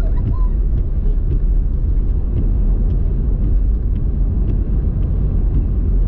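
Steady low rumble of a car driving on a wet road, heard from inside the cabin, with a few light ticks scattered through it.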